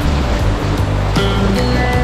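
Background music with a steady beat and a stepping bass line, over the rush of whitewater.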